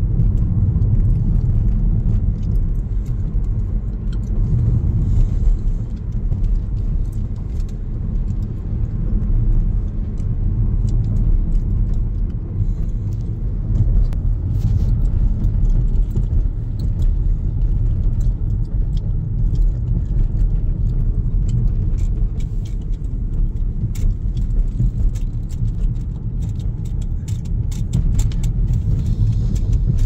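Car road noise heard from inside the cabin while driving: a steady low rumble of tyres and engine, with scattered small clicks and rattles that grow more frequent in the second half.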